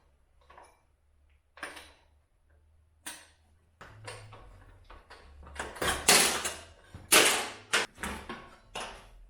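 Workshop handling noises: a series of short knocks and clatters, like tools and parts being picked up and set down, getting busier and loudest about six and seven seconds in, over a faint low hum.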